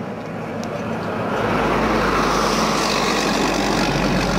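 A heavy truck driving past close by, its engine rumble and tyre noise swelling from about a second and a half in and staying loud.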